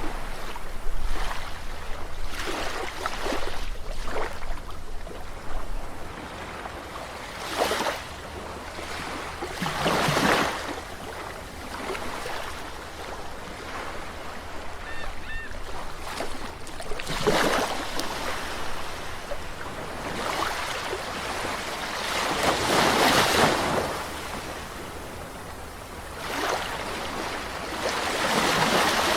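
Sea waves washing in on a shore, one swell after another rising and falling every few seconds, with the strongest washes about ten, seventeen and twenty-three seconds in.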